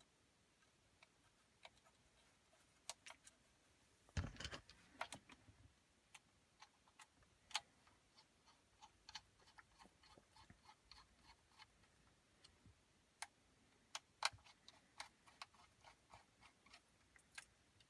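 Small screwdriver driving screws into the metal mounting bracket of a replacement touchscreen, heard as scattered light clicks and ticks of metal on metal, with a louder cluster of knocks about four seconds in.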